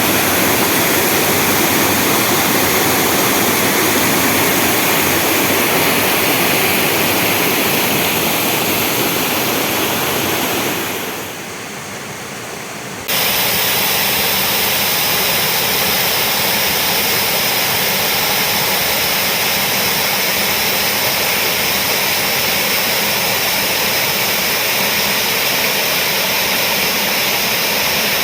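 Waterfall rushing over rock, a loud, steady roar of water close by. It dips about eleven seconds in, then comes back suddenly at full strength two seconds later.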